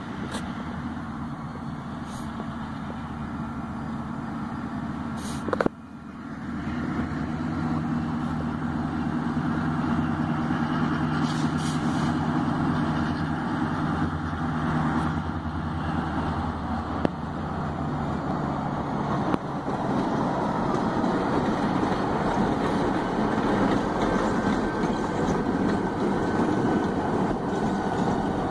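Diesel-electric locomotives, led by an EMD GP38-2, running with a steady deep engine drone as they roll past. The drone gives way to a broader rumble in the later part. A sharp click comes about five and a half seconds in.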